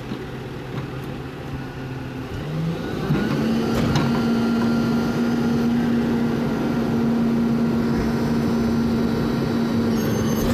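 Rear-loader garbage truck's engine stepping up from idle about three seconds in and holding a steady higher speed, the revving that drives the hydraulic compactor as it packs the load.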